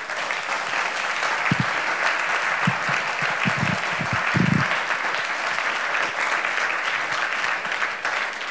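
Audience applauding steadily at the end of a talk, a dense crackle of many hands clapping.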